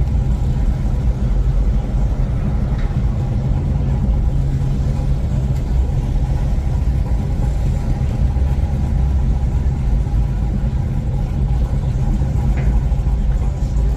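A car engine running steadily with a continuous low rumble.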